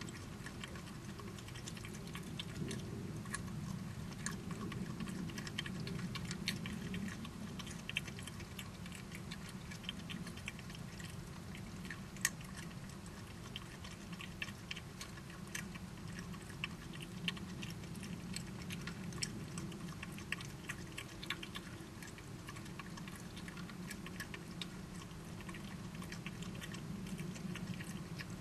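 Badgers eating: an irregular run of small crunching and clicking sounds of chewing, over a steady low hum.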